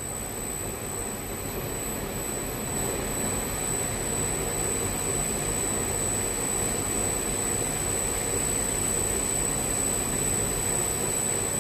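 Wave soldering machine running, a steady mechanical rush of blowers and drives with a thin, steady high whine over it.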